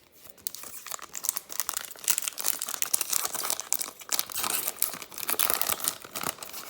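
A trading-card pack's wrapper being torn open and crinkled by hand, a dense, uneven crackling with louder stretches about two and five seconds in.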